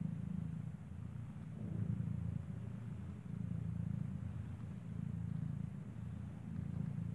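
Domestic cat purring steadily while nursing her kitten: a low rumble that swells and eases every couple of seconds.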